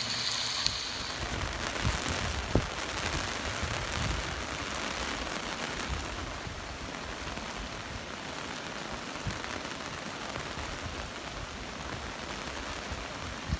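Rain falling steadily, with a couple of sharp ticks in the first few seconds.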